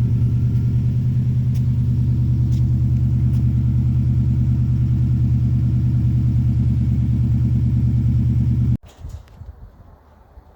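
Subaru WRX's turbocharged flat-four boxer engine idling steadily through a freshly fitted used stock exhaust; it cuts off suddenly about nine seconds in.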